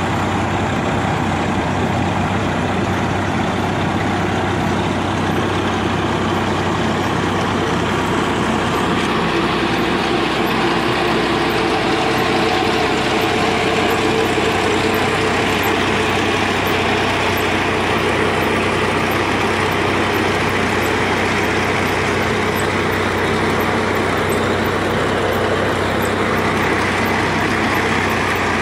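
Massey Ferguson 7250 DI tractor's diesel engine running steadily while driving a PTO trencher whose digging chain cuts through soil. About nine seconds in, the low hum weakens and a higher, gritty rushing noise comes up and carries on.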